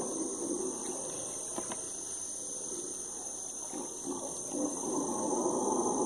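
A troop of howler monkeys roaring together: a deep, continuous rasping chorus that swells louder near the end.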